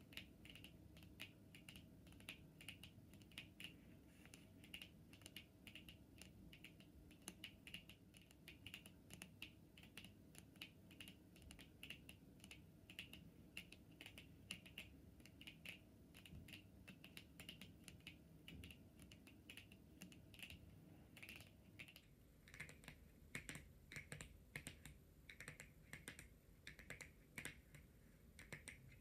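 Long natural fingernails tapping and clicking on tarot cards: a rapid, steady run of soft taps that shifts to a somewhat different tapping pattern about three quarters of the way through.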